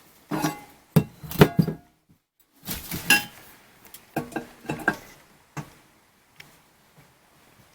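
Metal parts clanking and clinking as they are handled, a run of sharp knocks with a short ring. One cluster falls in the first two seconds and another about four to five seconds in.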